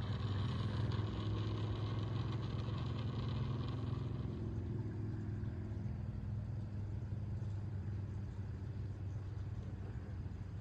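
Deep rumble of a SpaceX Falcon 9 rocket launch, strongest at the bottom end and slowly fading as the rocket climbs away.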